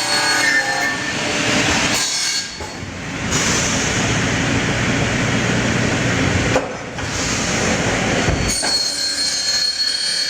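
Automatic 90° non-ferrous cut-off saw's circular blade cutting through an aluminium extrusion with a harsh screech, dipping briefly twice and stopping about eight and a half seconds in. After that the blade spins freely with a steady high whine.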